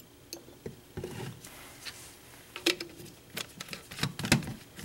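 Several light knocks and taps of a plastic reagent bottle and glassware being handled on a lab bench, the loudest near the end.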